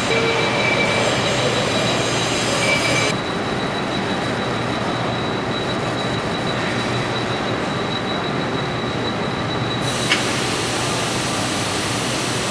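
Metal lathe turning round stock for an axle, running with a steady machining noise and a thin high whine. The sound changes abruptly about three seconds in and again about ten seconds in.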